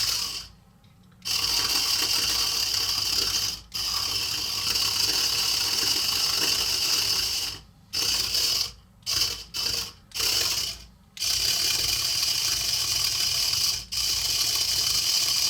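Hexbug Fire Ant's tiny electric motors and plastic gears whirring as its two tracks run in opposite directions, spinning the toy in place. The whir stops and restarts several times, once for about a second near the start and then in short breaks.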